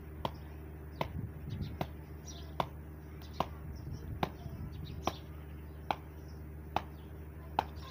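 A brick striking the top of a wooden stake to drive it into hard dirt ground: a steady beat of about ten sharp knocks, a little more than one a second.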